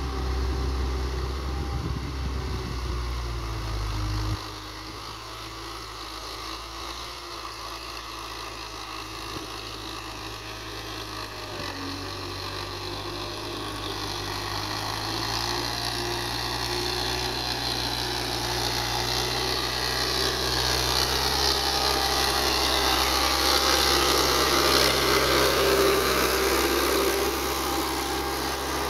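Belarus tractor's diesel engine running steadily while pulling a tine harrow through tilled soil, growing louder as the tractor comes close near the end. A heavy low rumble stops abruptly about four seconds in.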